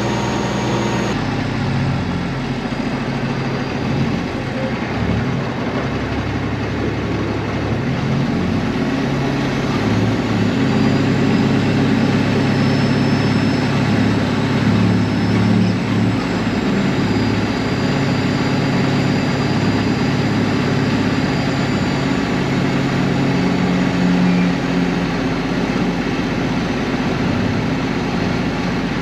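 Diesel engine of a loaded Peterbilt semi truck running at low speed while the truck pulls in to park. The engine note shifts a little in pitch as it goes.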